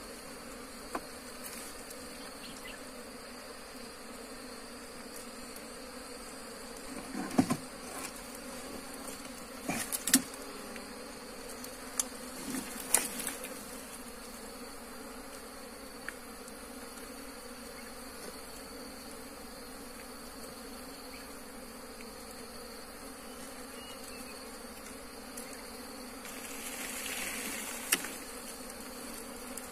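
Wild honeybees buzzing steadily in a swarm around their opened nest, with a few scattered knocks and taps.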